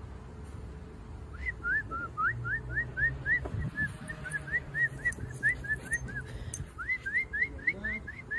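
Rapid run of short, high rising whistled chirps, about four a second, starting a little over a second in, with a brief break about two-thirds of the way through.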